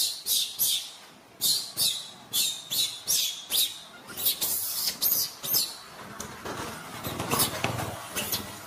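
A macaque giving a run of short, high-pitched squeaks, about two or three a second. A duller, lower noise swells under them about seven to eight seconds in.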